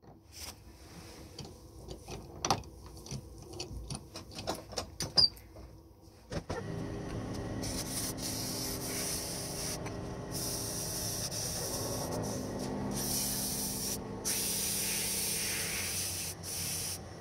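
Lathe running with a steady hum while sandpaper is held against the spinning grip, giving a rubbing hiss that comes and goes in stretches. Before the lathe starts, about six seconds of scattered clicks and taps.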